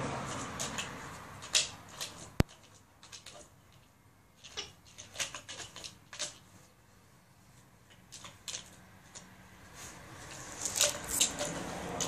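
Pink plastic treat ball being nosed and pawed along by a Siberian husky: irregular clicks, taps and short rattles as it rolls and knocks over concrete and grass, with one sharp click about two and a half seconds in as the loudest sound.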